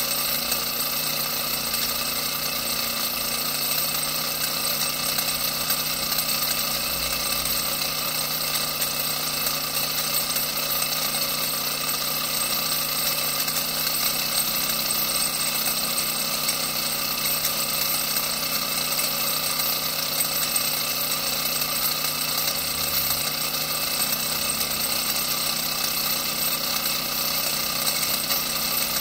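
Small brass model Stirling engine running fast, its pistons and crank linkage making a steady, rapid mechanical rattle.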